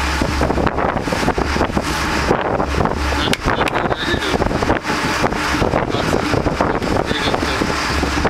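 Wind buffeting the microphone over the low drone of a fishing boat's engine, with scattered short knocks.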